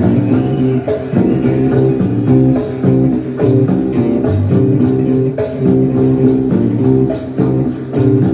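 Electric guitar played in a steady groove of repeated low, bluesy notes, with regular sharp ticks above the notes keeping time.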